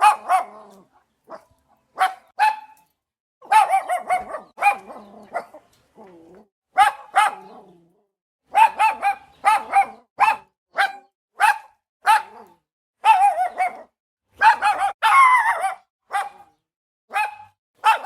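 A dog barking over and over in short, sharp barks, some single and some in quick pairs, with brief pauses between runs.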